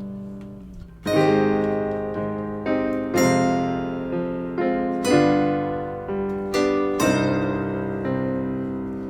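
Background music: a solo piano or keyboard playing struck chords and notes, one about every second, each fading before the next.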